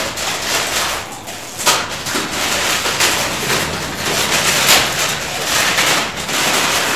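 Clear plastic packaging crinkling and rustling as it is handled and opened close to the microphone, in irregular crackly bursts.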